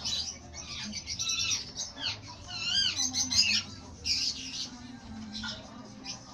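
African lovebirds squawking in quick, harsh, repeated calls, with a run of warbling chirps that rise and fall in pitch about halfway through.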